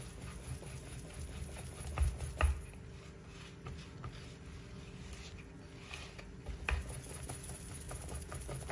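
Wire balloon whisk beating cake batter by hand in a plastic bowl: a quick patter of small wet taps and clicks, with a few louder knocks about two seconds in and again near the end.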